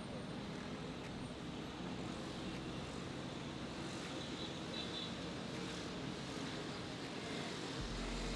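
Boat's outboard motor running steadily at low speed, dragging a magnet-fishing line along the riverbed. A deeper low rumble comes in near the end.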